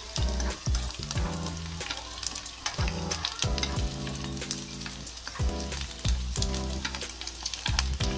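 Small dried squid frying in hot oil in a nonstick pan, crackling and sizzling with frequent sharp pops, while wooden chopsticks stir the pieces around. The squid is being fried on low heat until crisp.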